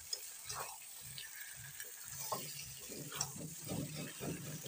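A spatula scraping and stirring chicken pieces in thick masala inside a metal kadhai while they fry, the bhuna stage of a chicken curry. Repeated scrapes, coming faster in the second half.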